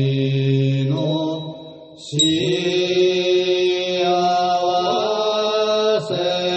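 Japanese Buddhist shōmyō chant, a Tendai wasan hymn sung in a folk-song-like melody by male voices: long held notes stepping from pitch to pitch, with a pause for breath about two seconds in before the next phrase begins.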